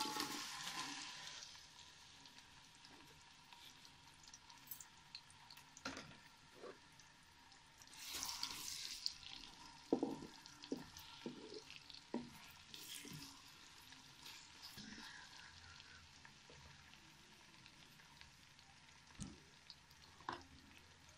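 Sliced onions tipped into hot oil in a metal pot, sizzling at once, then frying with a faint steady sizzle as a wooden spatula stirs them. There is a louder sizzle about eight seconds in and a few knocks of the spatula against the pot.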